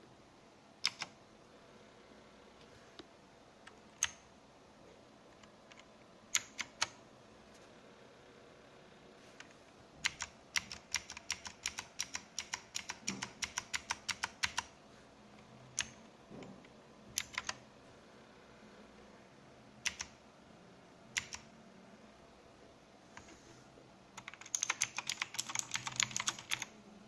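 Keys of an AULA F2012 mechanical keyboard being pressed. There are a few single keystrokes and pairs, then a run of fast typing from about ten seconds in that lasts some four seconds, more scattered keystrokes, and a quick flurry of typing near the end.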